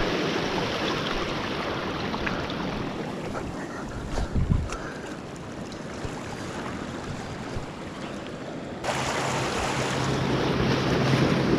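Small waves washing against shoreline rocks, with wind on the microphone. There is a low bump about four and a half seconds in. Near nine seconds the background changes abruptly and a steady low hum joins in.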